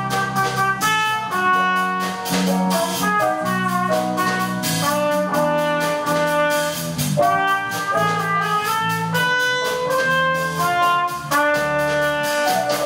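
Small jazz band playing live: horns carrying the melody in harmony over piano, bass and drum kit, with steady cymbal strokes keeping time.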